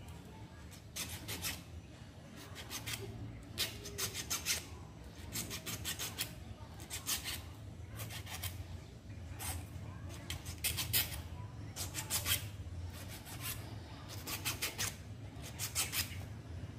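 Size 16 magnet wire being drawn through and around a toroidal transformer core while winding on extra secondary turns: a series of short, dry rubbing scrapes, roughly one a second.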